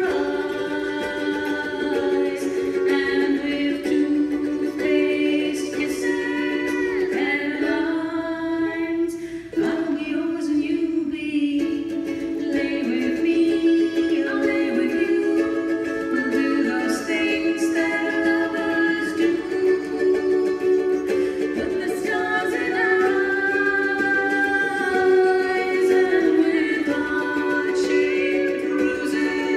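Live ukulele trio performing a song: several strummed ukuleles keeping a steady chordal rhythm under two or three voices singing the melody together.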